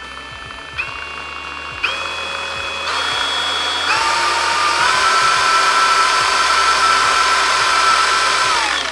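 Einhell CE-CP 18/180 Li E cordless polisher-sander running free with no load, its motor whine stepping up in pitch about five times, each step with a click of the speed button. It then holds at top speed and winds down as it is switched off near the end.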